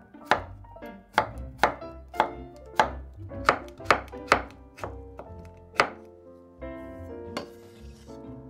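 Global steel kitchen knife slicing cucumber on a wooden cutting board, the blade knocking the board about twice a second. The slicing stops about six seconds in, over light background music.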